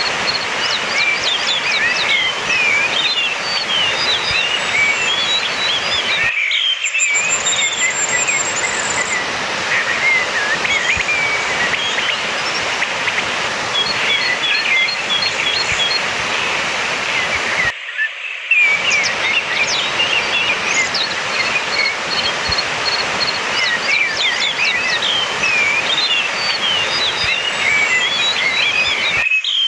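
Orange-headed thrush song from a lure recording: a quick, varied run of whistled and chattering phrases, with a high thin trill at times, over a steady background hiss. The sound drops out briefly twice, at regular intervals, as the recording loops.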